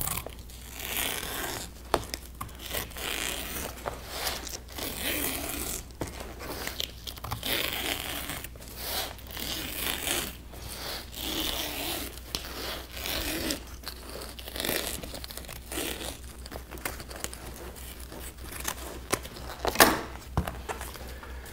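Scissors cutting along a strip of fabric in repeated crisp strokes about once a second, with rustling of the material; a sharper knock near the end.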